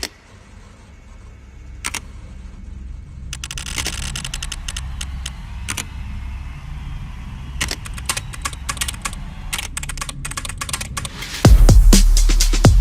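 Irregular clicking of mechanical keyboard keys being typed, over electronic background music with a steady low beat. The clicks grow denser a few seconds in. Near the end the music comes in much louder with heavy bass.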